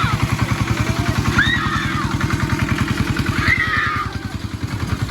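Small engine running steadily with a rapid, even putter of about a dozen beats a second, easing slightly about four seconds in. A few short high chirps sound above it.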